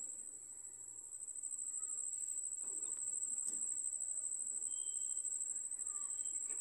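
Insect chorus droning steadily in two high tones, with a few faint clicks and short chirps over it.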